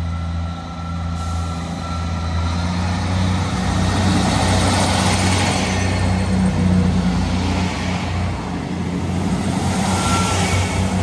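Northern Class 158 diesel multiple unit running into the station close by on the platform line. Its diesel engines give a steady hum under a swell of wheel and rail noise that builds about two seconds in and stays loud as the coaches pass.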